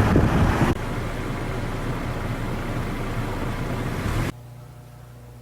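Wind buffeting the microphone, cutting off abruptly under a second in to a quieter steady rushing noise, which itself cuts off about four seconds in to a quiet low steady hum.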